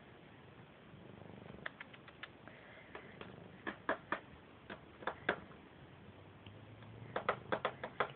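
Siamese cat purring, a low steady hum that comes in about six and a half seconds in, with a scatter of sharp clicks and taps throughout, clustered in the middle and near the end.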